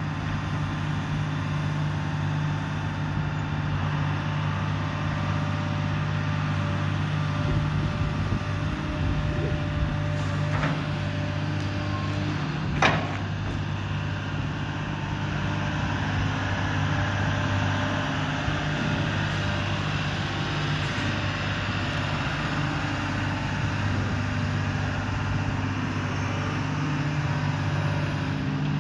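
2001 Case CX210 long-reach excavator's diesel engine running steadily, with a faint knock about ten seconds in and a sharp metallic knock about thirteen seconds in.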